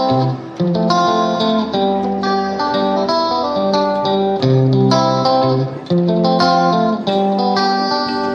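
Background music: a plucked guitar playing a steady run of notes.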